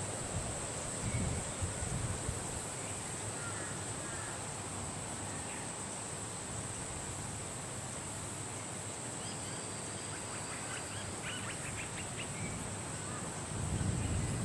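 Wind blowing in steady gusts, with low rumbling swells about a second in and again near the end, under a constant high hiss. Scattered faint bird chirps come through, with a cluster of short calls about two-thirds of the way in.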